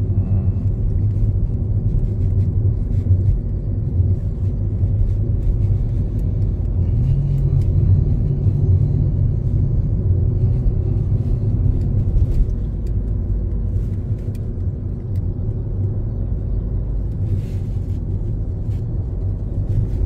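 Steady low rumble of a car's engine and tyres on the road, heard from inside the cabin while driving, a little louder in the middle.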